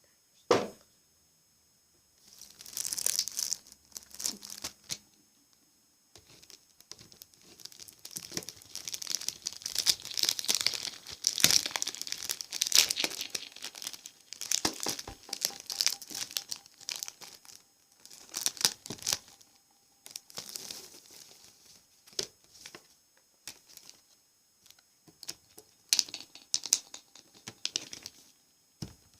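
Crinkling and crackling of a rustly material such as plastic or paper wrapping, handled close to the microphone as an ASMR trigger, in irregular bursts with a short pause between them and the longest stretch in the middle. A single sharp knock comes about half a second in.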